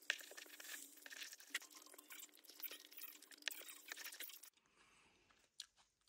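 Faint eating sounds: many small clicks and scrapes of metal chopsticks working noodles in a paper instant-noodle cup. About four and a half seconds in, the sound drops to a few quieter clicks.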